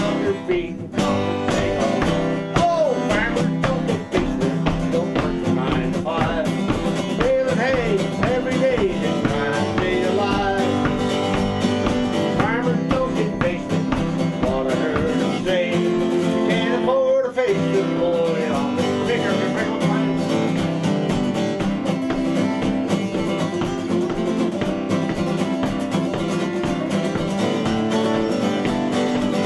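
Country-style music with guitar and a wavering melody line, playing steadily with a brief break about seventeen seconds in.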